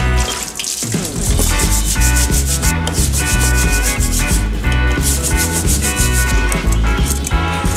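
Stiff scrub brush scrubbing a wet, rusty steel bicycle chainring in rapid back-and-forth strokes, over background music.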